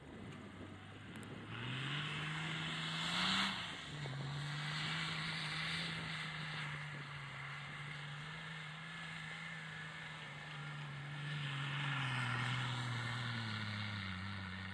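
Nissan Patrol GR Y60's 2.8-litre straight-six turbodiesel revving hard as the 4x4 drifts in circles on snow, with a hiss from the spinning tyres throwing up snow. The engine climbs in pitch about a second and a half in, peaks and drops back near three and a half seconds, holds steady high revs, then slowly winds down near the end.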